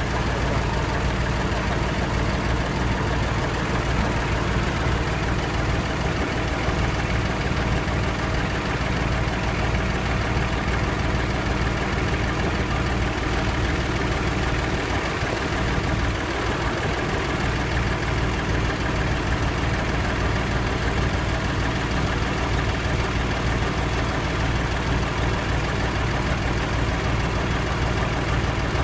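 Mercedes-Benz 1922 tipper truck's diesel engine idling steadily while it drives the hydraulics that lower the tipping bed.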